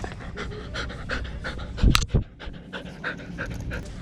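Dog panting, about three quick breaths a second, with a loud low bump about two seconds in.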